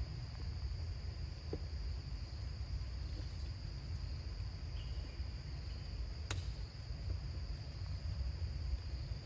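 Steady high-pitched drone of insects, over a low rumble, with one sharp click about six seconds in.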